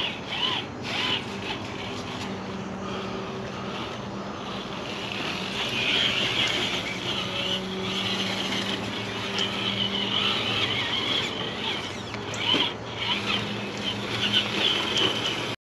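1/10-scale RC rock crawler's electric motor and geared drivetrain whining as it crawls, the pitch coming and going with the throttle. A few sharp clicks and knocks come through, and the sound cuts off suddenly near the end.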